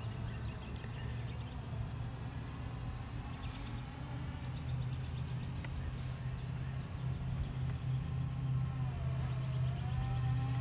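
Quadcopter drone's brushless motors and propellers humming in flight, with a steady low rumble underneath. Near the end the hum's pitch dips and then rises again.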